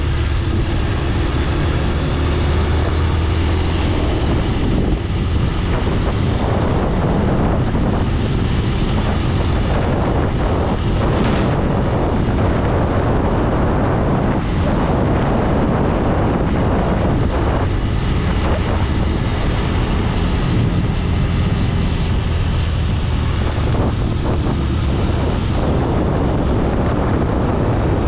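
Steady rumble of a moving vehicle, engine and road noise, with wind buffeting the microphone.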